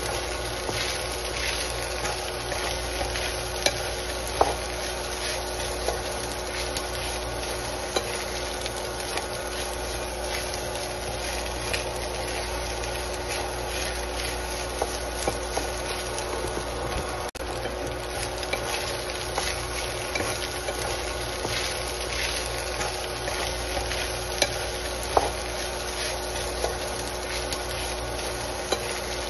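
Fried rice sizzling in a hot nonstick pan while a wooden spatula stirs and scrapes through it, with many small scraping clicks and an occasional louder tick against the pan.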